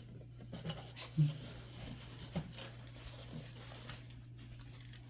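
Faint rustling and handling of a gift box and its packaging, with a few light knocks, over a steady low hum.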